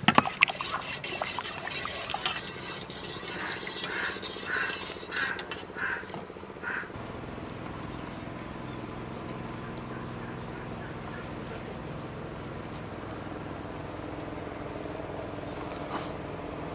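A metal spoon clinks against an enamel pot in the first half-second, then a duck quacks about five times in quick succession a few seconds in, followed by a steady low background hum.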